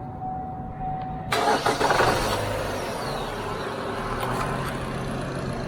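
2011 Chevy Cruze 1.8-litre four-cylinder engine started by bridging the starter relay with a jumper wire, since the key no longer cranks it: a short crank about a second in catches at once and settles into a steady idle. A steady high tone stops as the engine fires.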